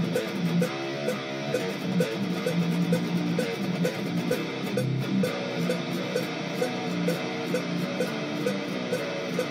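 Electric guitar being played, a riff of held low notes, over a steady tick about three times a second.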